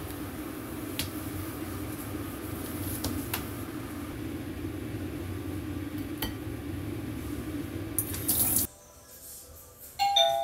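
A steady rushing noise with a low hum and a few light clicks cuts off abruptly about eight and a half seconds in. Near the end a two-tone electronic door chime begins.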